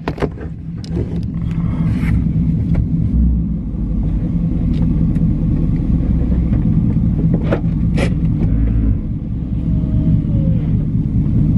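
2015 Chevrolet Camaro SS's 6.2-litre V8 running at low speed as the car creeps up onto ramps, heard from inside the cabin, with a few sharp clicks and knocks along the way.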